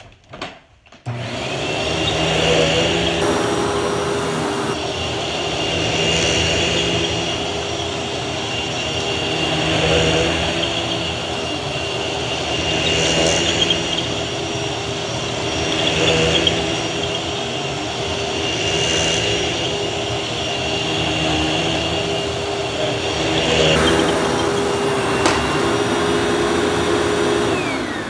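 Hoover Fold Away upright vacuum cleaner switched on about a second in and run over carpet, with a steady high whine over its motor hum. The sound swells and fades every three to four seconds as it is pushed back and forth. It winds down near the end.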